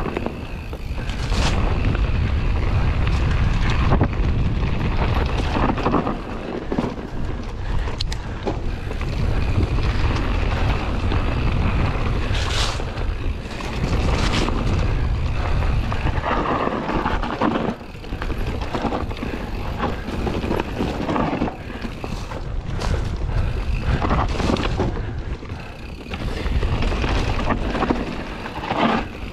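Scott Ransom 900 mountain bike descending dirt singletrack: a heavy wind rumble on the microphone, with tyre noise and frequent sharp knocks and rattles as the bike rides over bumps.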